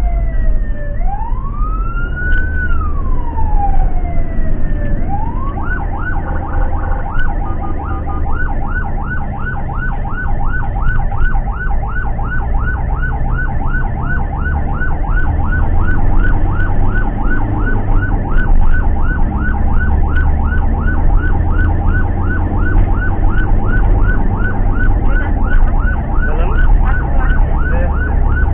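Ambulance electronic siren heard from inside the cab. It sweeps in a slow wail for about five seconds, then switches to a fast, rapidly repeating yelp. The van's engine and road rumble run underneath.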